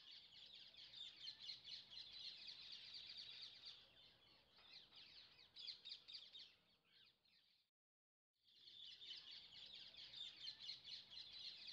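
Faint chorus of many small birds chirping, a dense, busy twittering. It drops out in a short silence about eight seconds in, then starts again.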